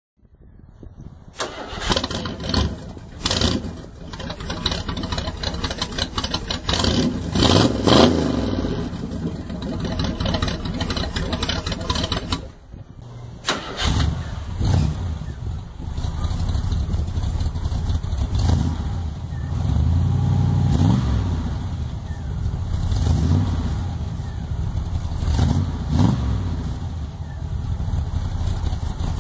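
Muffled small engine of a homemade tracked vehicle starting and running through freshly rebuilt mufflers, blipped up in several revs. Near the middle the sound drops away for about a second, then it runs on steadily with more rises in revs.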